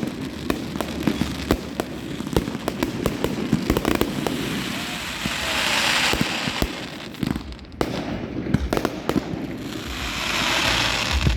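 Fireworks going off: a rapid, irregular string of sharp bangs and cracks, with two swelling, hissing crackles that build and fade around five to six seconds and ten seconds in.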